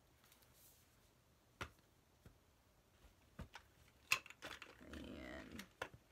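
Makeup palettes and their packaging being handled: a few sharp clicks and taps, the loudest about four seconds in, then a short patch of rustling with more small clicks.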